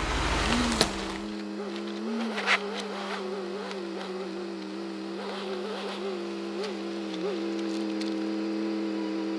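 Turbocharged Subaru Forester flat-four engine idling. Its pitch lifts briefly several times, then settles steady. A few sharp knocks sound over it, the loudest about two and a half seconds in. It opens with about a second of louder rushing noise.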